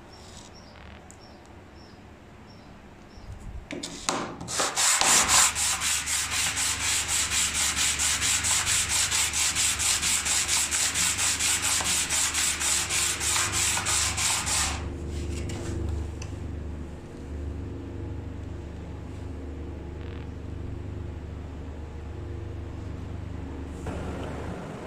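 A flat brass cross cutout rubbed by hand back and forth on a sheet of sandpaper, smoothing its face: a rasping scrape in rapid, even strokes. The scraping starts about four seconds in and stops about fifteen seconds in, leaving a steady low hum.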